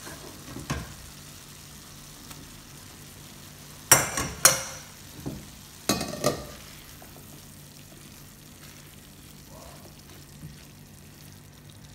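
A silicone spatula stirring chickpeas into a thick simmering vegetable curry sauce in a nonstick frying pan, with a few sharp knocks of cookware about four and six seconds in.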